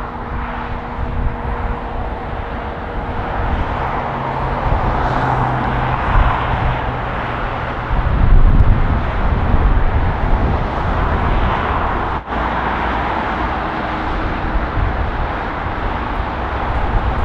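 Boeing 747-400 freighter's jet engines running at taxi power: a steady rushing roar that swells and eases, over a heavy low rumble.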